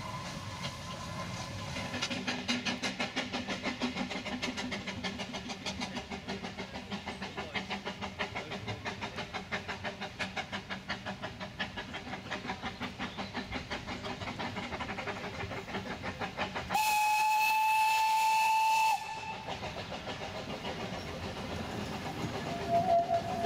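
Narrow-gauge steam locomotive working, its exhaust beating in a steady rapid rhythm. Near the end the steam whistle gives one loud, steady blast of about two seconds. A fainter, wavering tone starts just before the end.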